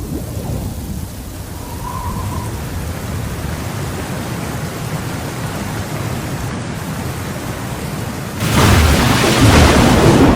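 Steady rain with low rolling thunder, swelling to a louder burst about eight and a half seconds in that cuts off suddenly at the end.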